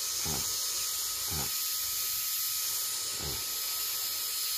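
Compressed air at about 4000 psi hissing steadily out of a PCP air rifle's reservoir tube through a brass male mini quick-coupler. The tube is being emptied slowly and deliberately so that it is certain to be fully depressurised.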